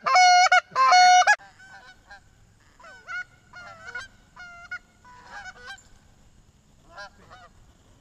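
Canada goose honking: a quick run of loud, close honks from a hunter's goose call in the first second and a half, then fainter, scattered honks of incoming Canada geese that die away near the end.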